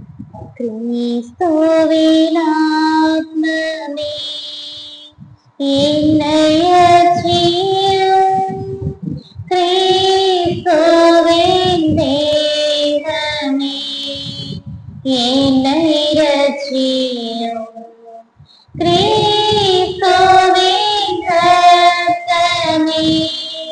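A single high voice singing a church hymn in long, gliding phrases, five of them with short breaths between.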